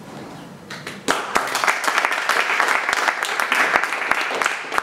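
Audience applauding with many overlapping hand claps, starting about a second in and dying away near the end.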